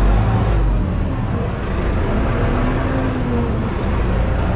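Arbos tractor's diesel engine running steadily under load while pulling a plough through the soil, heard from inside the cab. The engine note swells slightly and eases off in the middle.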